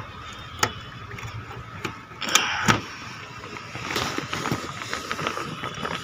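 A tarpaulin and thick sheet being pulled down over a wire-mesh aviary cage: plastic rustling and scraping, with a few sharp knocks against the frame, the loudest pair about two and a half seconds in.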